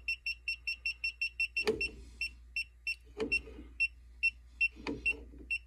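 Klein Tools ET310 circuit breaker finder receiver beeping: a run of short high beeps, about five a second at first and then slowing to about three a second, with a few light knocks among them. The beeping, with its green light, marks the breaker that feeds the traced circuit.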